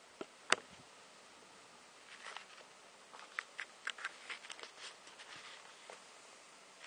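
Scattered light ticks and taps, with one sharp click about half a second in and a loose cluster of quieter ticks in the middle.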